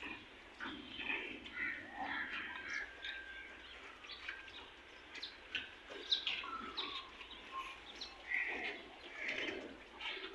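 Birds chirping in many short calls, some of them gliding in pitch, with a few brief clicks mixed in.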